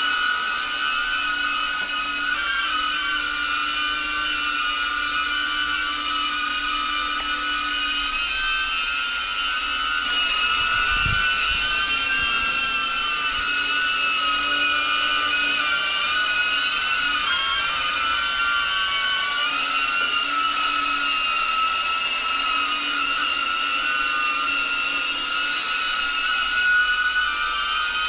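DJI Avata FPV drone's propellers whining steadily in flight, several close tones wavering up and down in pitch together as the motors change speed.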